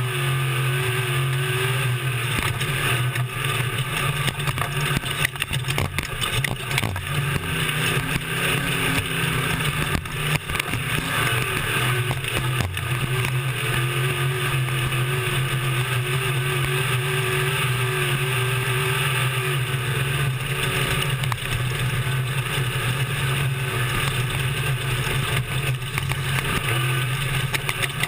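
Desert race truck's engine running at a fairly steady speed under way, heard from on board, with frequent knocks and rattles throughout.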